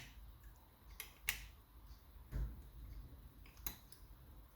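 Homemade lock picks working inside a lever mortice lock (ERA Invincible), giving a few sharp, irregularly spaced clicks and a dull knock as the levers are probed and lifted.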